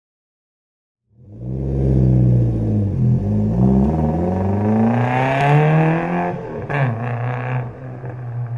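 Engine revving, starting about a second in: its pitch dips and then climbs for several seconds, then drops off suddenly, leaving a steady low drone.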